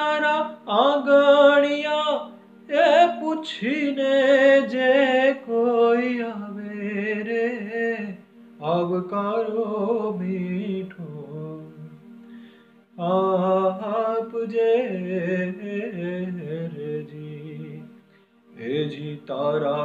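A man singing a slow Gujarati devotional folk song in long, ornamented phrases with short pauses between them, over a harmonium holding steady notes underneath.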